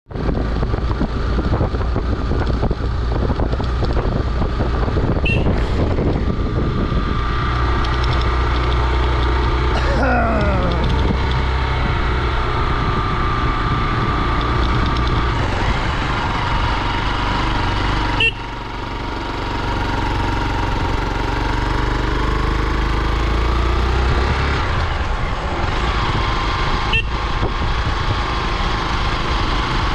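Hero XPulse 200 single-cylinder motorcycle engine running while riding, with wind and road noise. About ten seconds in, the engine note falls as the throttle is eased, and the sound changes abruptly at about four cuts.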